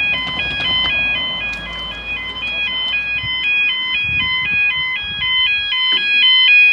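Level crossing warning alarm sounding its rapid two-tone yodel, the pitch stepping back and forth several times a second. It warns that the crossing is closing for an approaching train.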